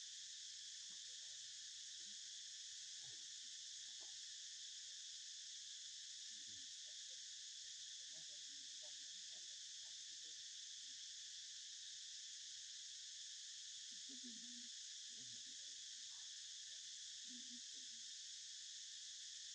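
Steady, high insect chorus, an unbroken even drone, with a few faint short low sounds beneath it in the second half.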